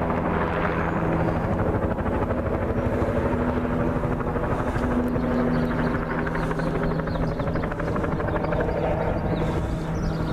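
Helicopter flying overhead, its rotor beating steadily.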